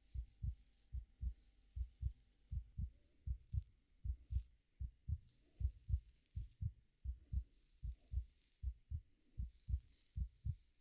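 A steady heartbeat, each beat a soft low double thump, at roughly 75 beats a minute. Over it come intermittent soft rustles of fingers playing through hair, each lasting half a second to a second.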